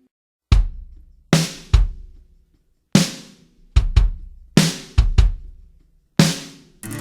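Drum kit playing alone in music: about ten separate hits of bass drum together with snare and crash cymbal, in an uneven, stop-start pattern, each ringing out before the next.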